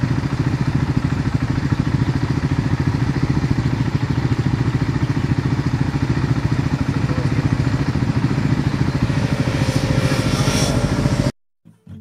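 Motorcycle engine running as the bike rides up the road toward the listener, a steady rapid even pulsing, cutting off suddenly near the end.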